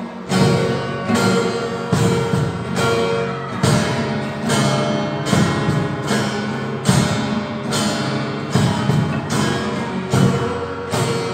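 Nylon-string classical guitars strummed in chords, with a steady rhythm of strong strokes a little more often than once a second.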